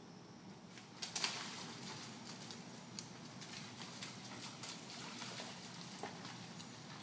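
Deer hooves splashing through shallow creek water: a burst of splashing about a second in, then irregular smaller splashes and patters.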